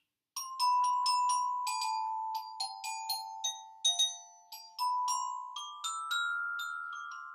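Glockenspiel with metal bars on a wooden box, struck with a mallet: a short tune of single ringing notes that steps down in pitch over the first few seconds, then climbs back up, each note ringing on after it is struck.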